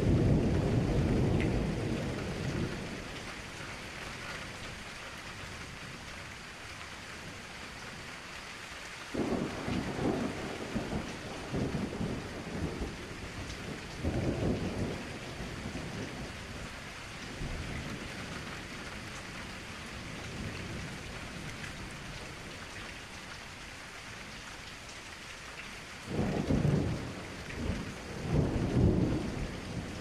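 Steady rain falling, with low rolls of thunder rumbling several times: at the start, twice around the middle, and longest and loudest near the end.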